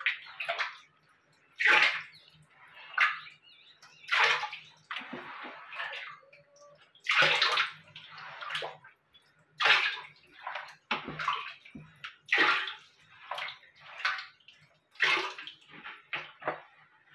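Hands scrubbing and scooping shallow water on the floor of a plastic water tank: irregular swishes and splashes, about one a second.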